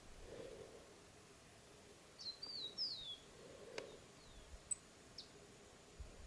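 Yellow cardinal giving faint, high single chirps and a short warbled phrase about two seconds in, over a quiet background hiss, with one sharp click just after the phrase.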